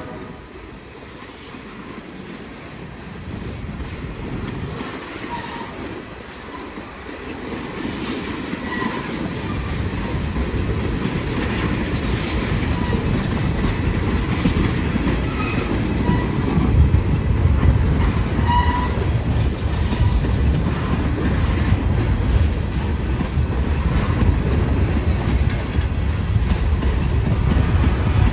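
Freight train of tank cars rolling past, wheels clacking over rail joints amid a steady rumble that grows louder about a third of the way in. A few short faint squeals sound from the wheels.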